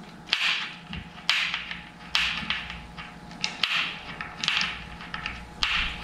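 Short metallic clicks and scrapes, roughly one a second, from hands threading a spoke nipple onto a new bicycle spoke and working the spoke against its neighbours in the wheel.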